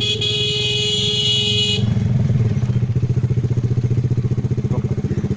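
Motorcycle engine running steadily while riding, with a horn blaring in one held honk for about two seconds at the start.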